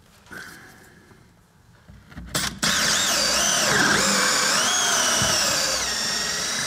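Cordless drill held up against the underside of a wooden boat hull, spinning up about two and a half seconds in and running with its whine wavering up and down in pitch as the trigger is worked.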